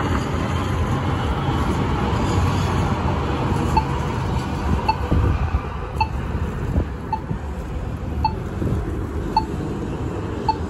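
Street noise of a Valley Metro light rail train and cars moving through an intersection, a steady rumble. From about four seconds in, a short high ping repeats about once a second.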